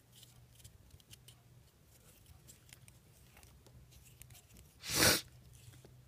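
Faint small clicks and handling of a pen knife being fitted back together, with one brief, loud rush of noise about five seconds in.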